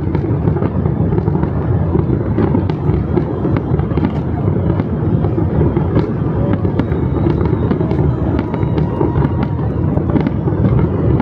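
Fireworks display going off without a break: a constant dense run of quick crackles and pops over a steady low din of bursts.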